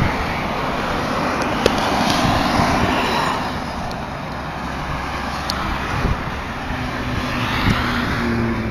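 Toll-road traffic heard from an overpass: tyre and engine noise swells as vehicles pass below, then eases. A low engine hum comes in near the end.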